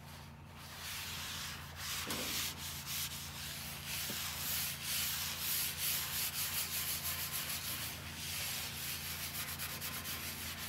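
Paper towel rubbed back and forth over the greasy non-stick ceramic-coated griddle top, wiping off grease. The rubbing comes in quick repeated strokes, lighter for the first couple of seconds.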